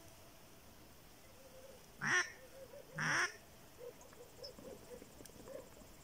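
Wild duck giving two loud, harsh quacks about a second apart.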